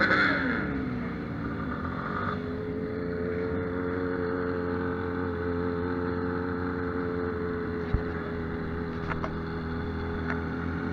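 Motorcycle engine running steadily at low road speed, heard from the rider's position on a Yamaha XTZ 250 Ténéré, a single-cylinder bike. A louder engine sound fades away in the first half second, and a single short knock comes about eight seconds in.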